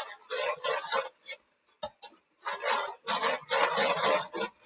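Electric hand mixer beating egg whites in a glass bowl, the beaters rattling and scraping against the glass in uneven bursts. The whites are frothy and turning white on the way to stiff peaks.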